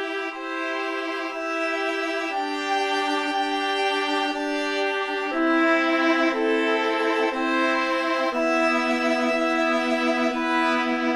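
Background music: slow string music of long held chords, changing every two or three seconds and growing louder about halfway through.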